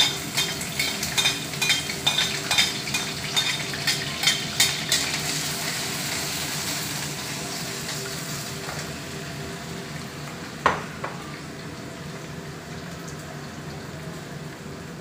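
Chopped green onion and garlic sizzling in hot oil in a wok. A metal spatula scrapes and taps the pan in quick strokes for the first five seconds. The frying then settles into a steady hiss that slowly fades, broken once by a single knock about ten and a half seconds in.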